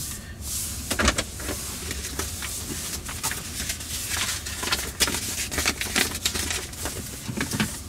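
Road and tyre noise inside the cabin of a moving all-electric Tesla Model S 100D: a steady low rumble with many short clicks and knocks scattered through it.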